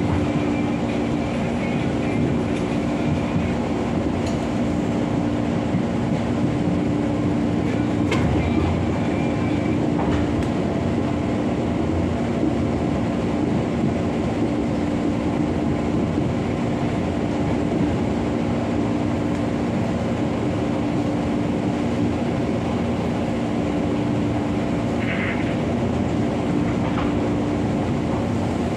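KRL commuter electric train running along the line, heard from inside the carriage: a steady rumble of the wheels on the rails with a constant hum.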